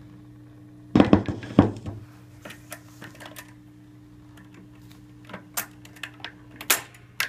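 Mechanical clicks and clatter from the Voice of Music 307 record player's changer and tonearm: a quick burst of clatter about a second in, then scattered light clicks and a louder click near the end. A steady low hum from the player runs underneath, and its higher tone stops with that louder click.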